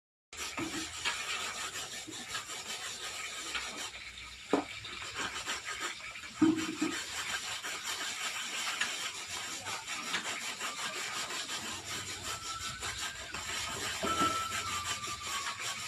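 Metal spatula scraping and stirring in a wok, a continuous rasping scrape with a couple of sharper knocks on the pan.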